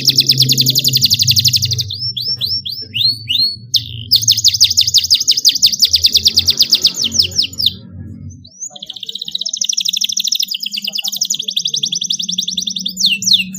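Domestic canary singing: long, fast, high-pitched trills (rolls) broken by phrases of slower down-sweeping notes, with short pauses about 2 s, 4 s and 8 s in. A low steady music bed plays underneath.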